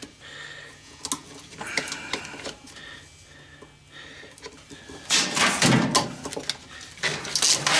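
A washing machine's wiring harness being pulled and worked loose, with clicks and rattles of wires, plastic and metal parts, and two louder scraping bursts in the second half.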